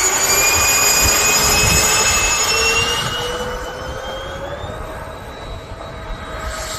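Twin 70 mm electric ducted fans of an RC YF-23 model jet spooling up to full power with a rising whine, then fading as the jet rolls away on its takeoff run.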